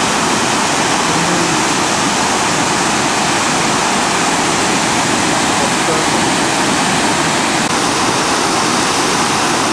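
Sirithan Waterfall, a steady loud rush of falling water.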